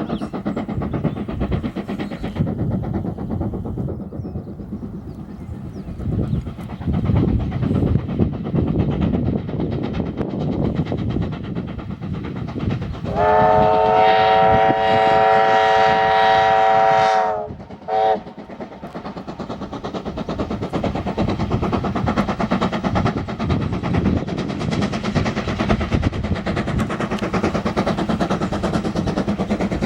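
American-built 2-8-0 steam locomotive working on the line, with a steady rhythmic beat of exhaust and running gear. About thirteen seconds in, its whistle sounds one long blast of about four seconds, followed by a short toot.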